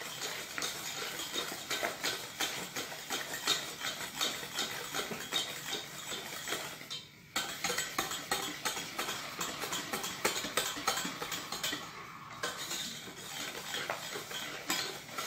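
Wire hand whisk beating a thick egg, sugar and flour mixture in a stainless steel pot, its wires clicking rapidly against the pot. The whisking stops briefly twice, about halfway through and again a few seconds later.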